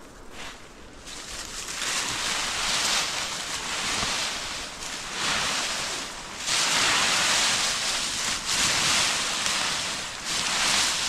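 Dry fallen leaves crackling and rustling as they are scooped up by hand from a heap, in repeated loud surges with short pauses between handfuls.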